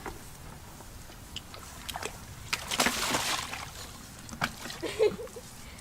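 Water sloshing and splashing, with a louder splash about three seconds in and a few light knocks.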